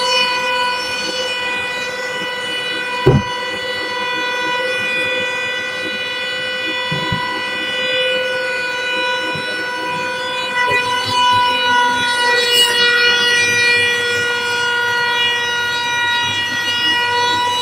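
Mini edge banding machine running, its motors giving a steady high whine of several pitches at once. A single sharp thump about three seconds in, with a few lighter knocks a few seconds later.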